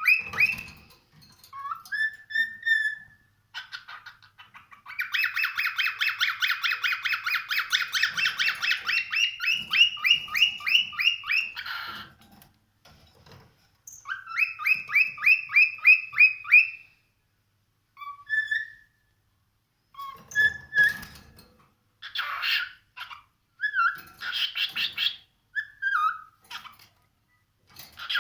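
Cockatiel whistling in fast runs of repeated notes: a long run of about seven seconds, a shorter run soon after, then short scattered whistles.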